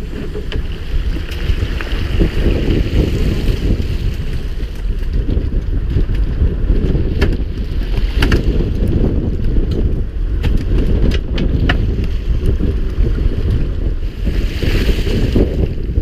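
Wind buffeting the microphone on a boat at sea, a steady low rumble that swells and dips, with scattered light clicks and knocks.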